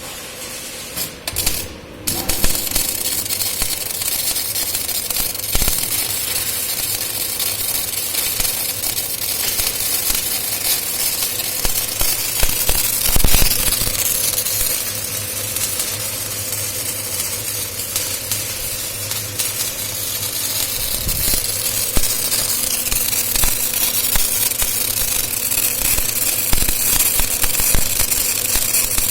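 CO2-shielded MIG welding arc crackling and hissing steadily as a root weld is run where a pipe meets a flange, the arc striking about two seconds in. Under it is a steady low electrical hum.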